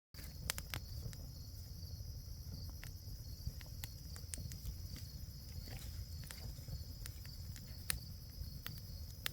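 Campfire crackling, with irregular sharp pops over a low rumble, while crickets chirp steadily in the background.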